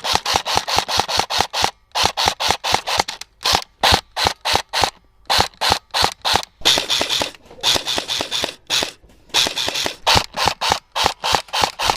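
Airsoft gun firing a rapid string of sharp shots, about four to five a second, in strings broken by short pauses.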